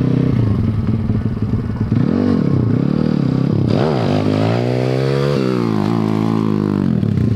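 Pitbike's small single-cylinder engine being blipped: the revs rise and fall three times. About four seconds in the throttle is opened into a long rising rev, which drops back sharply and then holds steady.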